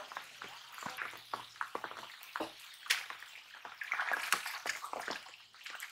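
Rain falling on river water and bankside plants: an irregular pattering and crackle of drops. About four seconds in, a hooked fish splashes and thrashes at the surface.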